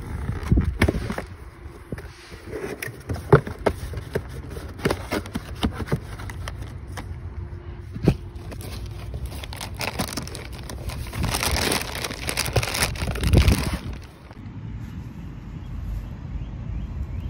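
Clicks and knocks of handling, then about three seconds of crinkling plastic as a new crankshaft pulley is unwrapped from its plastic bag in a cardboard box.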